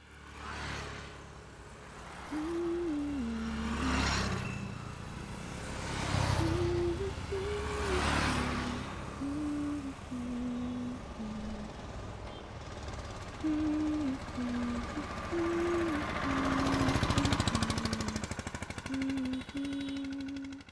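Vehicles passing by, each a rush of noise that swells and fades, several times. Under them runs a slow tune of single held notes.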